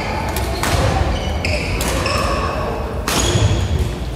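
Badminton rally: sharp racket hits on the shuttlecock at irregular intervals, with short high-pitched sports-shoe squeaks on the wooden court floor, echoing in a large hall.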